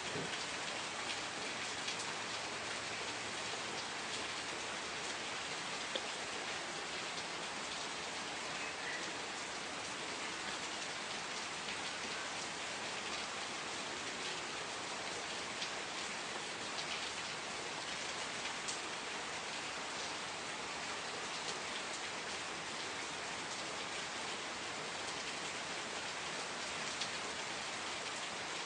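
Steady rain falling, an even hiss with scattered drop ticks on a surface.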